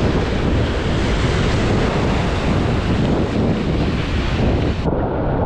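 Breaking surf and churning whitewater with strong wind buffeting the microphone, a loud, steady rush. About five seconds in the high hiss drops out suddenly and the sound turns duller.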